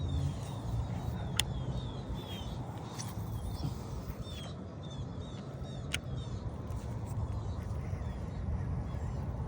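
Wind rumbling on the microphone while birds chirp repeatedly in short, downward-sliding notes. Two sharp clicks stand out, about a second and a half in and again about six seconds in.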